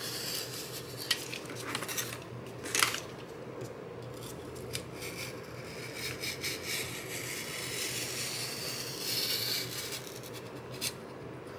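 Utility knife cutting freehand through cardboard: a faint, scratchy scraping of the blade through the board, with a couple of sharp clicks in the first few seconds.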